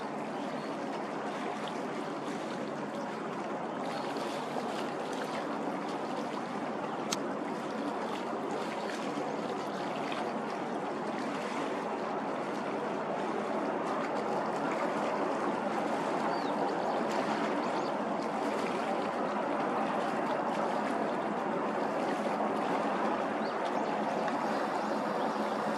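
Steady rushing water from the bow wave and wake of an Akizuki-class destroyer passing close by, growing a little louder about halfway through.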